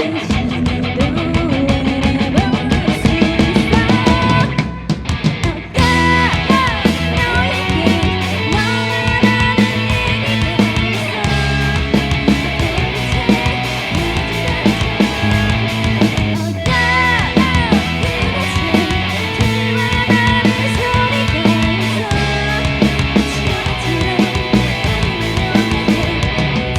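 Live rock band playing: electric guitars, bass and drum kit. The band drops out briefly about five seconds in, then comes back in at full level.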